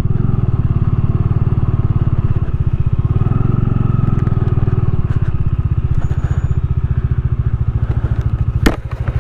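Bajaj Dominar 400's single-cylinder engine running steadily with an even, rapid pulse, and a sharp click near the end.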